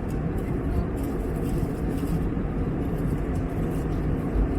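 Steady cabin noise of an Airbus A321neo in cruise: an even, low rumble of engines and airflow.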